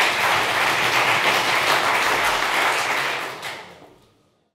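Audience applauding steadily in a hall, fading out near the end.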